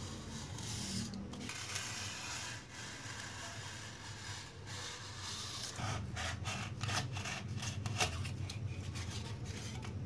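Utility knife blade sawing through a styrofoam sheet: a scratchy, squeaky rubbing. About six seconds in, it turns into quick short strokes, roughly three a second.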